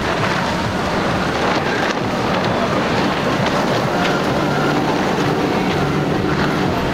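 Motorboat engines running, with wind buffeting the microphone.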